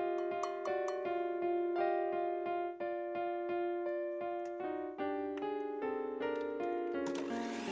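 Background piano music, a steady run of struck single notes. Near the end an electric hand mixer starts up under the music, a whirring hiss.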